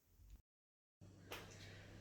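Near silence: faint room tone with a steady low hum, broken about half a second in by a split second of dead silence.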